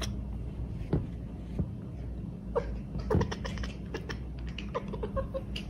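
Hairless cat chattering at something outside the window: short runs of quick clicks and brief chirps, over a steady low hum.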